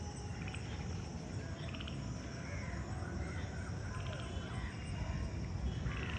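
Rural outdoor ambience: a steady high insect drone over a low steady rumble, with short pulsed animal calls now and then, one about two seconds in, one about four seconds in and one near the end.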